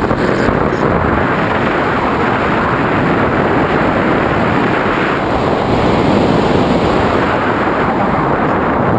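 Airflow rushing over the microphone of a camera mounted on a hang glider in flight: a steady, loud wind noise.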